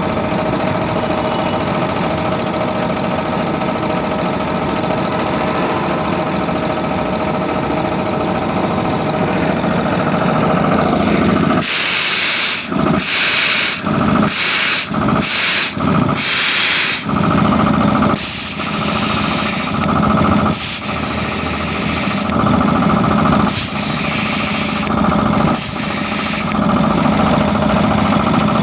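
Puma 3065 3 HP piston air compressor running steadily. About twelve seconds in, compressed air starts being let out in a quick series of short hissing blasts, then in longer hissing bursts with short pauses, over the pump's running.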